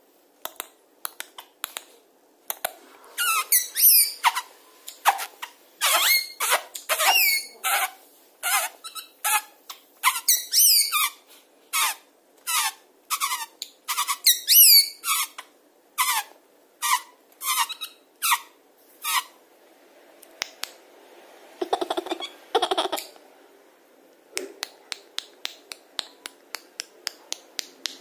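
Indian ringneck parakeet giving a long run of short, shrill squeaks, about two a second, as it plays. Near the end the squeaks give way to a few softer sounds and then a quick series of light ticks.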